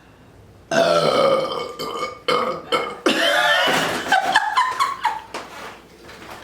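A woman burping loudly several times in a row after chugging beer. The burps start about a second in, and the longest comes around the middle.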